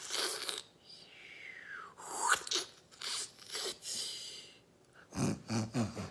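A woman's mouth-made sound effect for an eerie, unknown noise: hissing, sputtering breaths with a falling squeal, then a few low grunts near the end.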